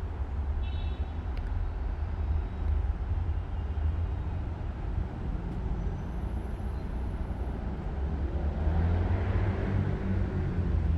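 Steady low rumble of city traffic, with a brief high chirp about a second in and a louder swell near the end as a vehicle passes.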